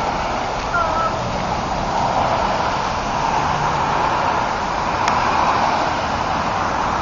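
Steady noise of passing road traffic, swelling and easing slowly, with a single click about five seconds in.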